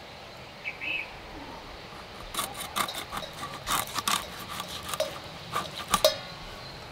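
Hilsa being cut into steaks on a boti, the fish drawn against the fixed curved blade: a quick run of short cutting strokes through skin and bone, starting about two seconds in.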